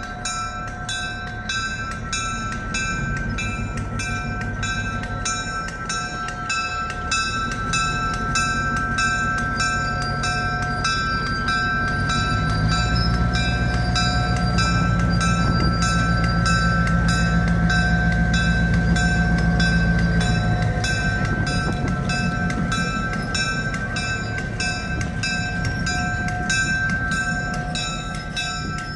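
Diesel switcher locomotive's engine running as it pulls passenger coaches past, growing louder through the middle as it comes close and easing off near the end. Over it a bell rings steadily, about three strokes a second.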